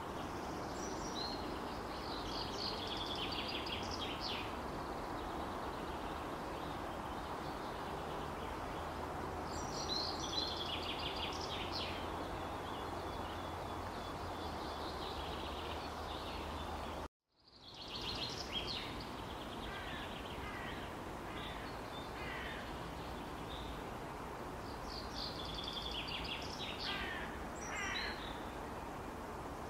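Outdoor ambience: a steady hiss of background noise with birds calling in short bursts of quick high notes every several seconds. The sound cuts out completely for a moment a little past halfway.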